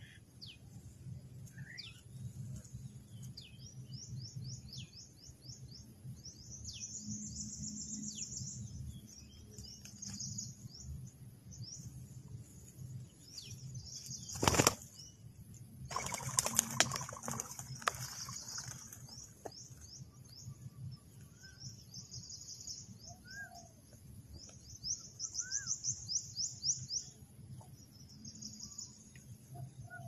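Spotted dove's wings flapping in a short flurry as it takes off, just after a single sharp knock. Rapid high trills recur, with a few short bird chirps near the end.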